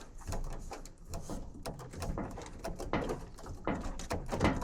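Irregular clicks and rustles of handling noise, many short knocks in quick succession, with a short low pitched sound near the end.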